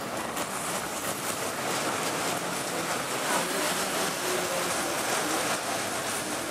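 Cars of a steel fairground roller coaster running along the track: a steady noise of wheels on steel rails.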